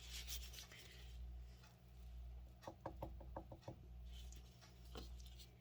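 Quiet room with a steady low hum. Past the middle comes a quick run of about seven light taps or knocks, and one more near the end, as painting things are handled on the work surface.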